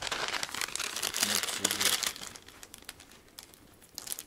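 Crinkling and rustling of handled packaging for about two seconds, then a few scattered light clicks.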